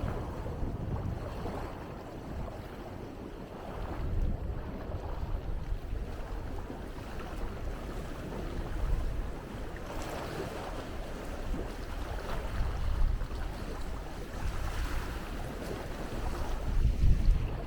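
Ocean waves washing in, with wind buffeting the microphone; the rumble swells and eases every few seconds.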